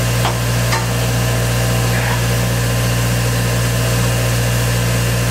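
A machine running with a steady low hum, with two light clicks within the first second.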